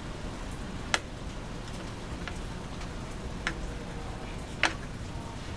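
A few sharp, isolated clicks from screwdriver and screws knocking against parts as the motorcycle's front assembly is screwed back together, spaced a second or more apart, over a steady low hiss.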